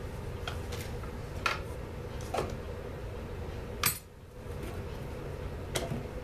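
Scattered clinks and knocks of metal tools and chainsaw parts being handled on a workbench, about five in all, the sharpest about four seconds in. A steady low hum runs underneath.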